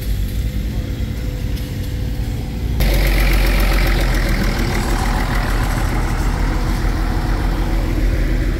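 An engine running steadily, with a louder rushing noise that comes in suddenly about three seconds in and holds.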